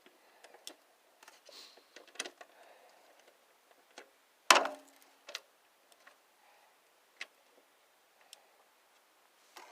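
Scattered light clicks and clinks of hand tools against the metal parts of a lawn tractor. About halfway through comes one loud metallic clank that rings briefly.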